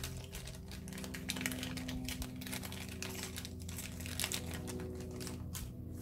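A small plastic zip-lock bag crinkling and rustling as it is handled and opened. Light clicks come from small resin cross charms knocking together as they are tipped out into a hand.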